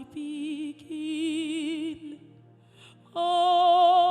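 Slow worship song sung with vibrato over a steady sustained instrumental backing, the lyric "my beginning". The notes are held, with short breaks between them, and a louder, higher note comes in about three seconds in.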